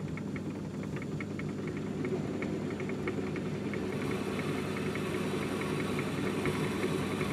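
Myford ML7 hobby lathe running, with a steady hum and a light rapid ticking, while a centre drill in the tailstock spots the end of a spinning brass piston.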